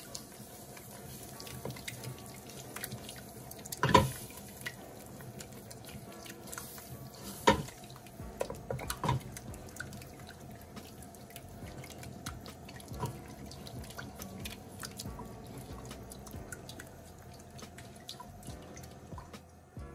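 Wooden spoon stirring a thick roux in a stainless steel saucepan while whipping cream is poured in, with small irregular clicks and wet dripping sounds and a few louder knocks of the spoon against the pot.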